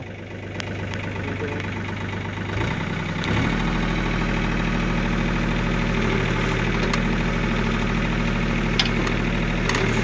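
John Deere compact tractor's diesel engine running while it works the backhoe digging a trench. It grows louder over the first three seconds, then holds steady.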